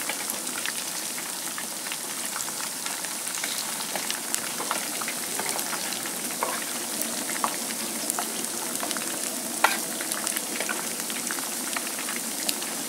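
Flour-coated fish pieces frying in a pan of hot oil: a steady sizzle with scattered crackles and small pops, one louder pop a little under ten seconds in.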